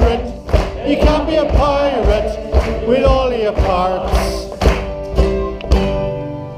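Group of voices singing a jaunty pirate song to strummed acoustic guitar and banjo, with a strong beat about twice a second. Near the end the song settles on a held note that fades away.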